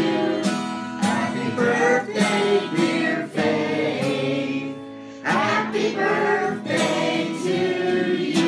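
A man singing while strumming an acoustic guitar, with a brief quieter lull about five seconds in where the chord rings on.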